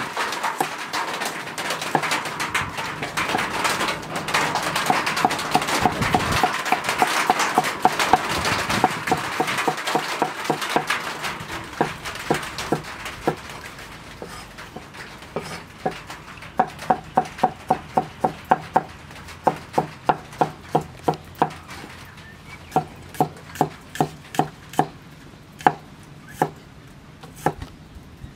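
Steel cleaver chopping garlic on a round wooden chopping block, sharp strikes at about three a second in runs with short pauses. Through the first half the strikes sit under a louder, noisy din.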